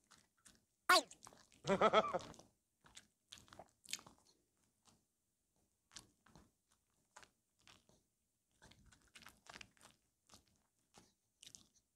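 A small Maltese dog biting and licking at a fresh strawberry held in fingers: scattered wet mouth clicks and small crunches. About a second in comes a brief voice-like sound, the loudest thing.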